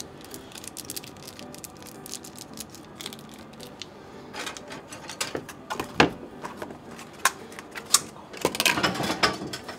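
Light clicking and crinkling of kitchen things being handled, dense for the first few seconds, with a few sharp knocks about six and eight seconds in.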